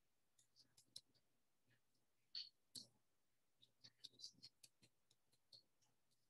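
Near silence with faint scattered clicks and light taps and scrapes, from an ink pad and a paper piece being handled as its edges are inked.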